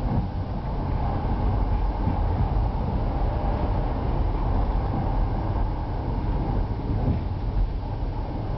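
KTR001 series diesel railcar running along the track, a steady low noise of engine and wheels on the rails heard from inside the front of the train.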